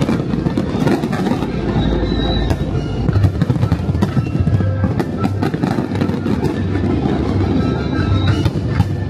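Music from the fireworks show's soundtrack playing loudly, with the frequent sharp pops and crackles of fireworks bursting over it.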